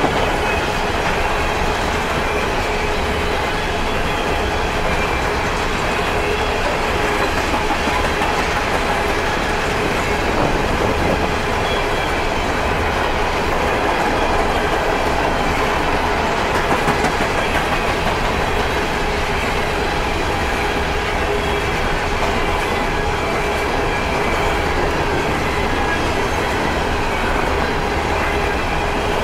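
Empty steel coal hopper cars of a freight train rolling past, their wheels running steadily on the rails, with faint high ringing tones over the rolling noise.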